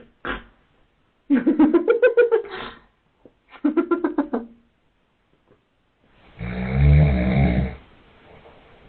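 A man snoring, with one long, low, rattling snore about six seconds in and a faint breath out after it. Two shorter, higher-pitched rattling voice sounds come before it, about a second and three and a half seconds in.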